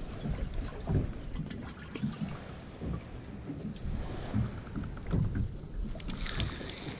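Wind buffeting the microphone and water lapping against a small boat's hull, with scattered faint clicks from a spinning reel being wound in on a fish. A brief hiss about six seconds in.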